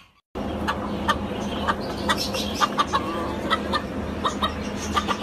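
A flock of chickens clucking, many short calls overlapping over a steady low hum. It starts abruptly just after a brief silence.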